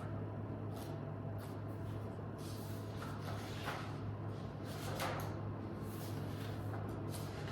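Study-room background: a steady low hum with scattered light clicks and rustles, and a slightly louder rustle about five seconds in.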